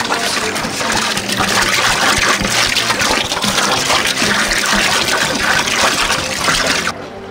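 A thick stream of liquid gushing from a large metal can into a glass tank of foaming orange soda, with a steady splashing, pouring sound that drops away abruptly near the end.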